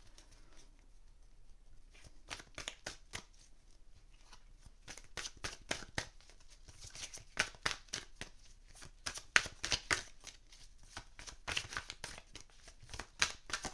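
A tarot card deck being shuffled by hand: a run of quick, crisp card flicks and slaps, sparse at first and coming thick and fast from about two seconds in.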